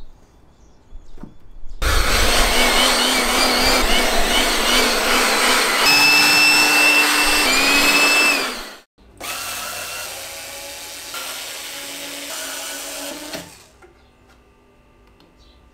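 A corded Makita handheld power tool running steadily on a wooden organ reed pan, with a steady whine through it. It cuts off sharply about nine seconds in, runs again more quietly for about four seconds, then stops.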